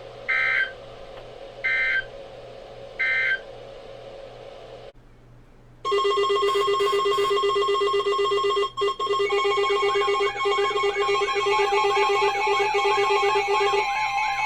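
Three short Emergency Alert System (SAME) end-of-message data bursts, harsh two-tone digital screeches about a second and a half apart, marking the end of the severe thunderstorm warning. After a second of quiet, music with sustained electronic tones and a repeating warbling figure starts.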